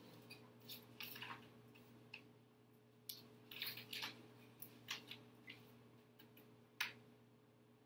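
Pages of a ring binder being turned and handled on a table: a scatter of short, faint paper rustles and clicks, with one sharper click late on, over a low steady hum.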